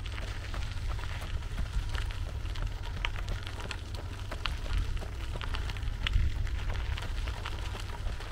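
Wind buffeting the microphone as a steady low rumble, with irregular small crunches and clicks of gravel on a dirt path as it is travelled over.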